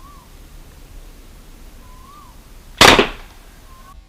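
A single loud shot from a homemade alcohol-fuelled PVC toy gun about three seconds in: one sharp crack that dies away within a fraction of a second.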